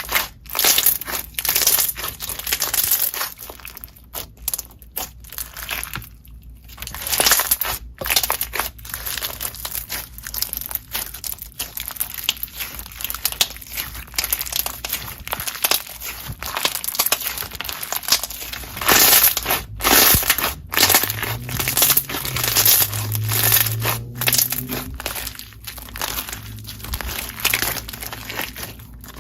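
Slime being pressed and squeezed by hand, giving a dense, uneven run of crisp crackles and pops.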